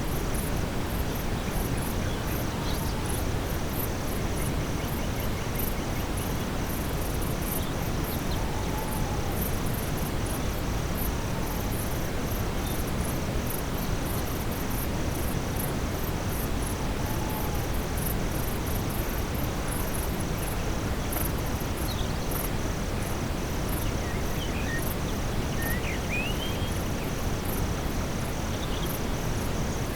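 Steady brown noise, a deep even hiss, mixed with a forest soundscape at nightfall: crickets and other insects chirping in a continuous high pulsing trill. A few faint bird calls come through, mostly in the second half.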